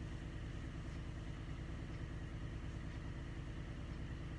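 A steady low hum with no other distinct sounds.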